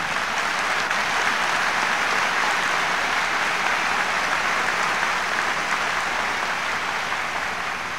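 Large crowd applauding: a steady wash of clapping that eases off slightly near the end.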